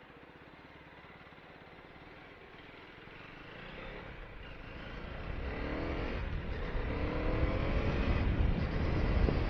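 KTM Duke 250's single-cylinder engine as the motorcycle accelerates. It is faint at first, then grows steadily louder from about three seconds in, its pitch rising around the middle.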